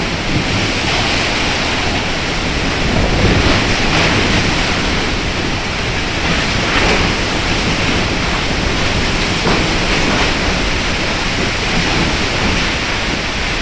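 Storm wind and heavy rain: a loud, steady rushing that swells a little in gusts, with wind buffeting the microphone.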